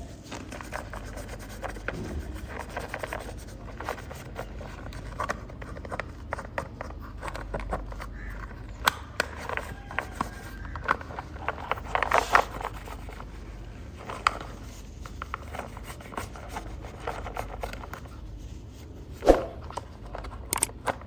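Hands working over a small toy car during cleaning: rubbing and scraping with many small clicks and taps, busiest about halfway through, and a single louder knock near the end.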